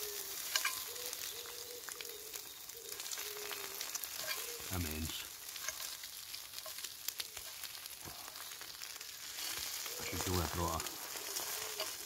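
Food sizzling in a Petromax SP32 wrought iron skillet over a campfire, a steady frying hiss with many small crackles.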